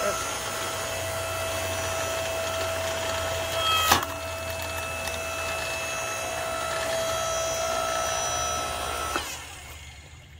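Ryobi 15-amp electric log splitter's motor running with a steady whine as the ram pushes into an old, once-wet log. A sharp crack about four seconds in as the wood gives way. The motor stops about nine seconds in.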